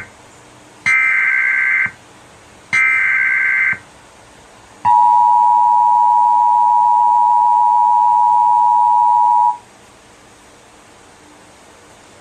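Emergency Alert System header: two one-second bursts of the shrill two-tone SAME data signal, then the steady two-tone EAS attention signal, held about five seconds before cutting off. It announces an emergency alert broadcast, here a National Weather Service flash flood warning.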